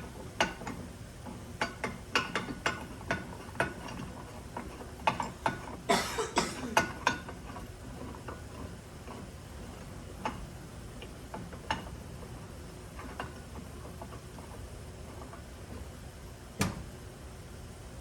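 Hand tool clicking on a ball joint press as its screw is turned to force a new ball joint into place, with the press working tight. The clicks come in quick runs over the first seven seconds, thickest around six to seven seconds in, then only now and then, with one sharp click near the end.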